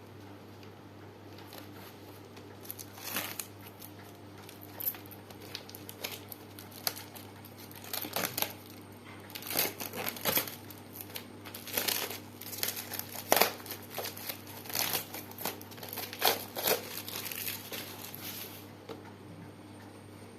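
Sketchbook packaging crinkling and rustling as it is handled and opened, with irregular sharp crackles and tearing sounds that stop near the end.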